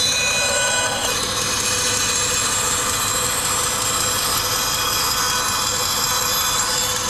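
Laguna 14-inch bandsaw running steadily, its blade cutting a freehand curve through a thin piece of pine.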